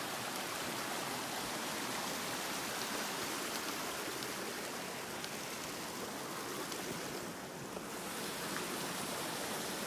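Small rocky creek running over stones: a steady rush of flowing water, fading a little for a moment near the end.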